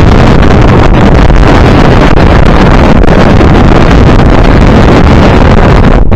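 Strong wind buffeting the microphone on a moving boat: a loud, steady rush with a heavy low rumble.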